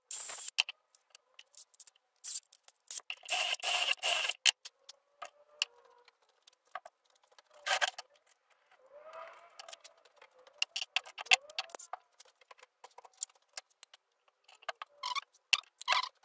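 Wooden blocks and loose hardware handled and set down on a workbench, giving scattered knocks and clicks, with short bursts of a cordless drill running about three to four seconds in.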